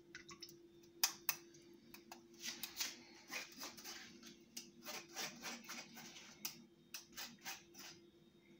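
Scattered light clicks and taps, some single and some in quick clusters, from a metal spoon and mesh strainer being handled over a bowl of freshly strained juice.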